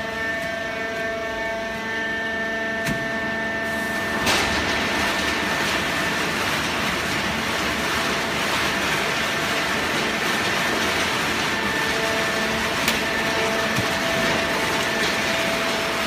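Horizontal hydraulic waste-paper baler running: a steady hum of its motor and hydraulic pump with several held tones. About four seconds in, a click, then a louder, even rushing noise sets in and carries on, with the hum's tones showing through again near the end.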